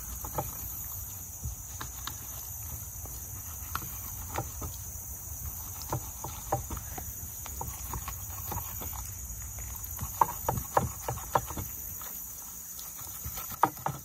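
Fillet knife cutting a trout on a wooden cutting board: scattered short clicks and scrapes as the blade works through skin and rib bones, thickest from about ten to eleven and a half seconds in. A steady high insect buzz runs behind it.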